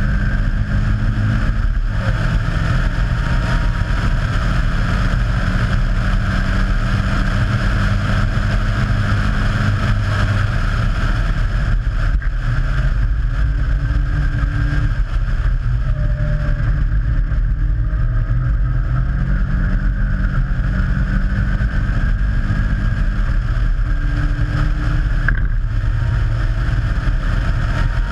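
Caterham Seven's Ford Sigma four-cylinder engine running hard at racing speed, heard on board with wind noise over the open cockpit. The engine note drops and picks up again at several gear changes.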